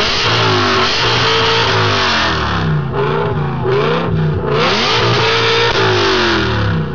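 BMW E60 M5's V10 engine through an Evosport aftermarket exhaust, revving up and down repeatedly, its pitch rising and falling several times.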